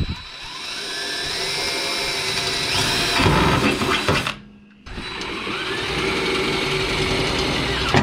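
Electric drill drilling a hole in metal, run twice: the motor whine rises as it spins up, stops briefly partway through, then runs up again and holds until it stops near the end.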